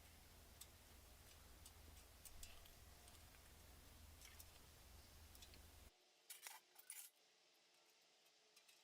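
Near silence: a faint low hum with scattered light clicks. The hum cuts off about six seconds in, and a few slightly louder clicks follow.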